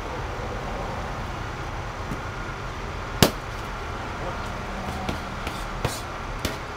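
Gloved punches smacking into focus mitts: one sharp, loud smack about three seconds in, then three lighter ones near the end, over a steady low background rumble.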